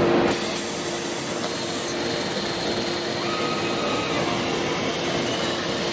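Factory machinery running: a steady mechanical noise with a constant two-tone hum. A faint higher tone sounds for about a second near the middle.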